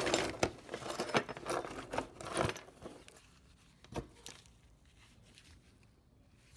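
Scrap pieces being handled and sorted by hand: rustling and light clattering for the first couple of seconds, a single sharp knock about four seconds in, then only faint background.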